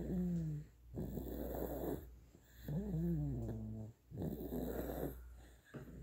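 A sleeping baby of about nine months snoring, a breath about every two seconds; some breaths carry a pitched, wavering snore.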